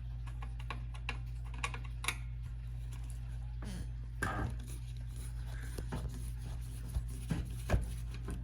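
Irregular light clicks and taps of screws being fitted back into an AV receiver's metal cover, with a short scrape about halfway through, over a steady low hum.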